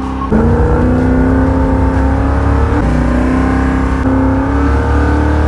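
Holden Torana SS's 355 stroker V8 pulling under acceleration, its pitch climbing steadily, dropping once about three seconds in at a gear change, then climbing again.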